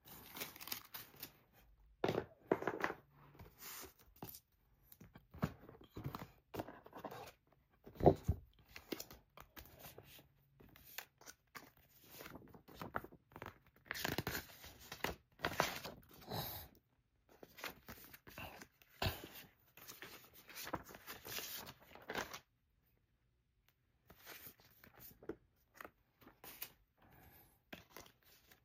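Paper and cardboard packaging being handled: a paper documentation envelope and card inserts rustling, sliding and scraping in irregular strokes, with a sharp knock about eight seconds in.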